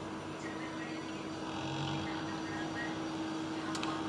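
Centurion Scientific C2 Series benchtop centrifuges running at speed, a steady even hum with one held tone. A couple of faint clicks near the end.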